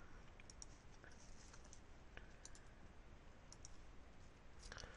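Faint computer mouse clicks, a few quick pairs of them spread through, over low background hiss.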